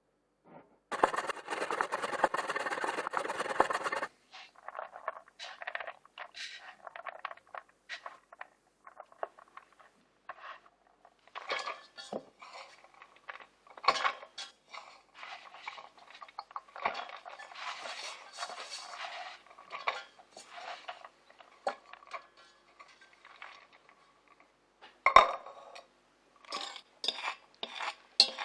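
Stainless steel pots and a metal spoon clinking and scraping as shredded cheese is handled and then stirred in the pot. There is a three-second stretch of dense rasping noise about a second in, and a sharp knock near the end.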